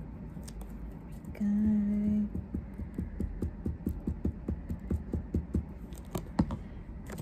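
A short steady hummed note, then a run of soft quick clicks, about four a second, from glue being dotted out of a plastic squeeze bottle.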